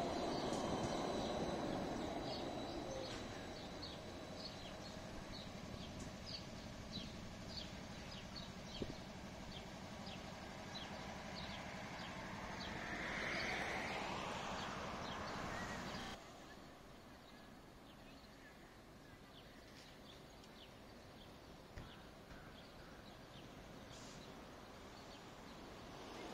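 An articulated low-floor tram rolling past close and fading away, followed by faint street ambience with birds chirping; a vehicle swells and passes about two thirds of the way through, and the sound then drops abruptly to quieter distant traffic.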